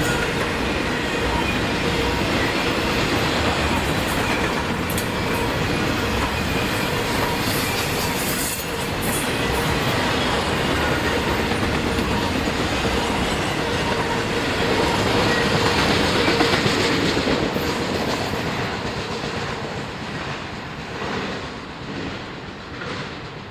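A train rolling past at track side: steady clatter of wheels on the rails with a faint steady tone running through it, the sound fading away over the last few seconds as the train moves off.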